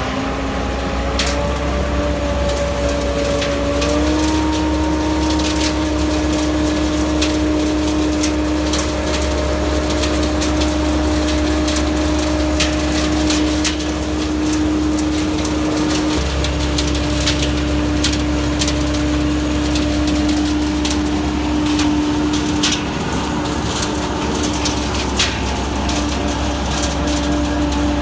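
MTZ-82 diesel tractor running its mounted PN-70 vacuum sweeper: a steady whine that climbs slightly over the first few seconds and then holds, over a low engine rumble, with scattered clicks and rattles throughout.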